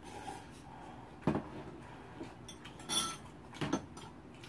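Metal eating utensils and ceramic bowls clinking and knocking during a noodle meal: a few short knocks about a second in, a bright ringing clink around three seconds, and another knock just after.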